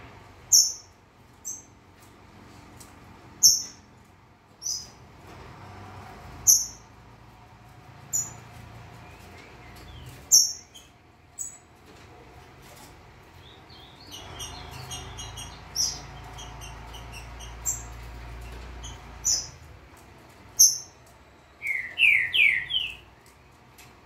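Caged songbirds calling: short high chirps repeated every second or two, with a flurry of quicker chips in the middle and a run of lower, sweeping notes near the end.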